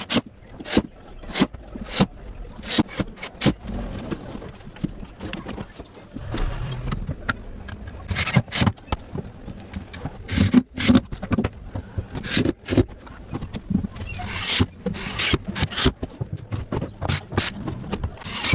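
Workshop sounds of wood and MDF being worked by hand: irregular sharp knocks and taps, with a few short scraping or rubbing passes.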